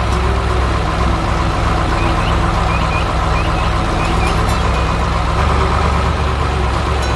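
Heavy vehicle engine sound effect running steadily with a deep rumble. A few short, high, rising chirps come between about two and four and a half seconds in.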